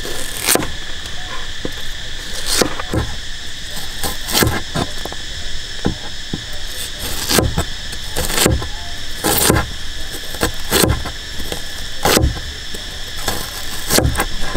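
A heavy cleaver chopping red onion on a wooden cutting board, a knock roughly once a second at uneven intervals. Underneath runs a steady high insect drone.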